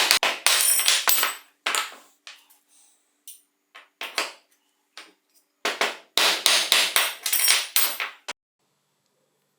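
Metal clinking and knocking of tools against steel bicycle parts during disassembly, in irregular clusters of sharp, ringing strikes that stop abruptly about eight seconds in.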